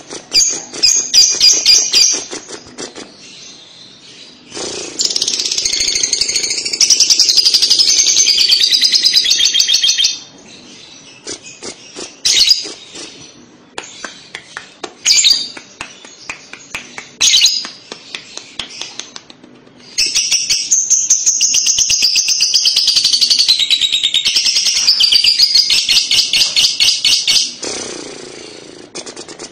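Lovebird singing its 'ngekek' song: fast, high-pitched, continuous chattering trills in two long bouts of several seconds each, with short separate bursts of chatter between them.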